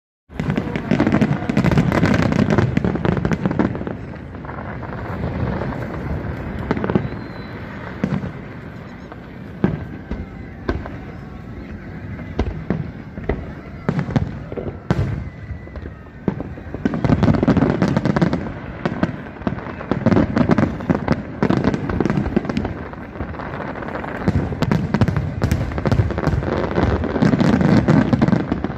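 Large aerial fireworks display: shells bursting thick and fast with crackle between, loudest in the first few seconds and again through the second half, with a thinner, quieter spell in the middle.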